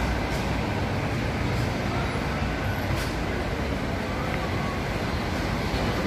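Steady city traffic noise: a low rumble with a constant hiss over it and a faint click about three seconds in.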